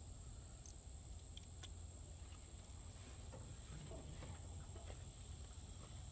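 A few faint, scattered light clicks of hand tools on a small engine, with a steady thin high whine and a low hum underneath.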